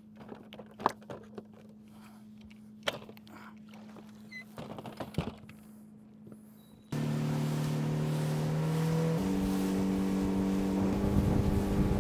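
Knocks and scrapes of gear being handled in a boat, over a faint steady hum. About seven seconds in, a boat's outboard motor comes in suddenly, running steadily, and its pitch steps up about two seconds later as the throttle is raised.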